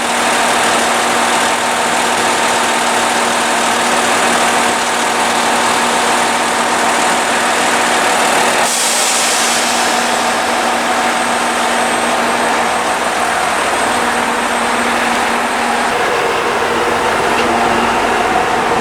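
A vehicle's engine running steadily, heard from inside the vehicle, with a brief hiss about nine seconds in.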